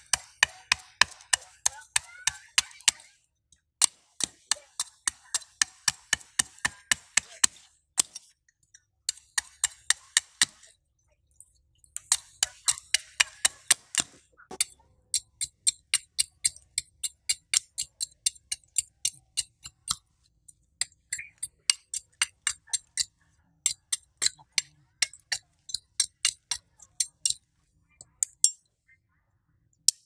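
Machete blade chopping and shaving bark off green sticks. Quick sharp strikes, about three to four a second, come in runs of a few seconds with short pauses between.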